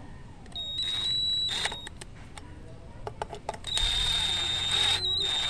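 Small electric screwdriver with a hex bit running bolts into a motorcycle brake disc: a high steady whine in two spells, the second starting about halfway through, with a few sharp metal clicks between them as the bit seats on the bolt heads.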